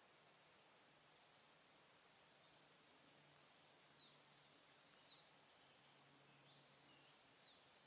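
Gundog whistle blown four times in a high, steady tone, the blasts about half a second to a second long and most tailing off downward in pitch, as the handler directs a German shorthaired pointer at long range on a blind retrieve.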